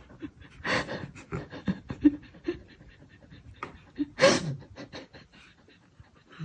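An animal panting in quick, short breaths, with two louder, longer breaths about a second in and about four seconds in.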